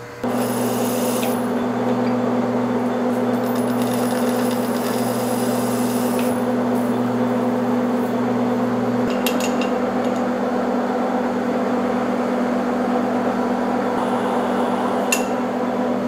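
Monarch engine lathe running with a steady hum while a tool is fed against the spinning coupling half to chamfer and deburr it, giving two short hissing cuts in the first six seconds and a few light clicks later on.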